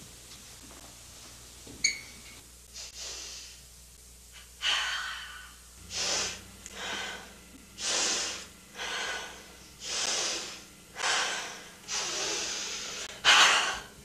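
A woman breathing heavily, a loud, hissing breath about once a second, starting about four and a half seconds in, with the sharpest gasp just before the end. A single sharp click about two seconds in.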